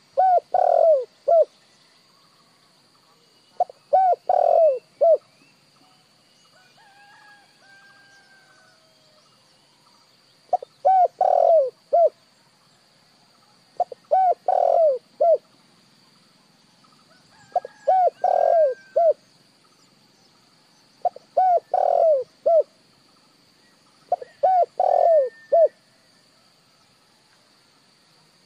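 Spotted dove cooing: seven phrases of several short, arched coos, each phrase about a second and a half long and coming every three to four seconds, with a longer pause after the second.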